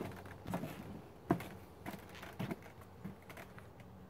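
Footsteps on a lake dock: about six steps, a little over half a second apart, the one a little past a second in the loudest.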